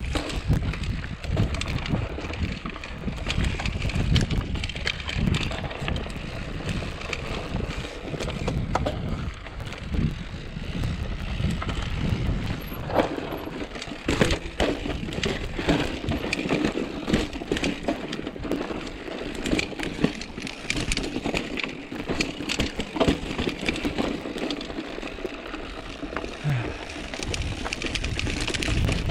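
Mountain bike riding over a rocky dirt trail: a steady rush of tyre and trail noise with frequent knocks and clatter as the wheels hit rocks.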